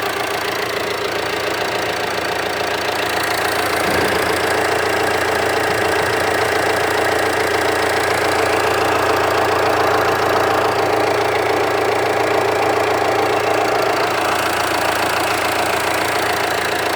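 Jeep Compass 2.0 four-cylinder turbodiesel idling steadily, heard from the front of the engine, with the typical diesel knock ('tchoc'). The mechanic calls this normal for a diesel, not a fault.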